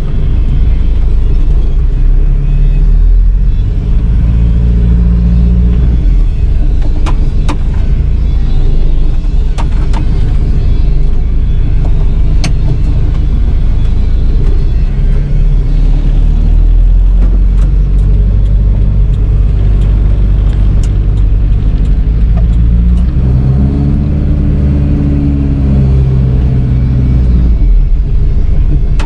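Volkswagen Transporter van's engine heard from inside the cab while driving, its pitch rising several times as it pulls up through the gears, over steady road rumble. A few light clicks and rattles from the cab.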